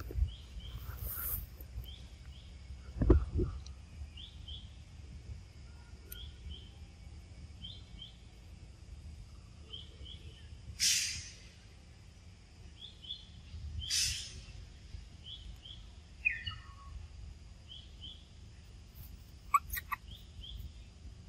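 Forest ambience: a short double chirp repeating every second or two over a faint steady high tone. There is a low thump about three seconds in, two brief hissing bursts near the middle and a few clicks near the end.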